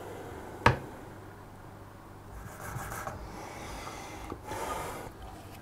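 Abrasive sharpening stone stroked along the tip of a kitchen knife blade on a guided sharpening system: a sharp click under a second in, then two scraping strokes of the stone on the steel.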